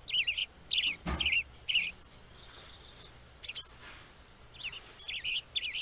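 Birds chirping: quick clusters of high, rapid chirp notes that come again every half second or so, with one thump about a second in.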